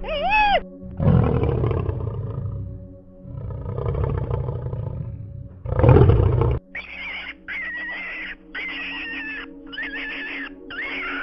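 A lion roaring: three long, rough roars, the last the loudest. From about two-thirds of the way in, a run of short, high, repeated calls comes in over steady background music.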